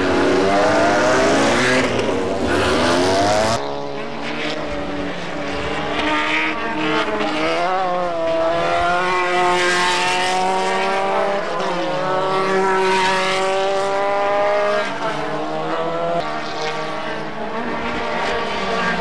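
Formula Renault single-seater race car engine revving hard, its note climbing in pitch through each gear and dropping back at the shifts. The sound cuts abruptly to another car's engine about three and a half seconds in.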